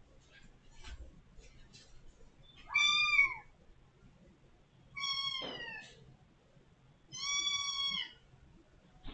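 A kitten meowing loudly three times, each call long and drawn out, the middle one falling in pitch: calling at the door to be let out. A few faint taps come before the first call.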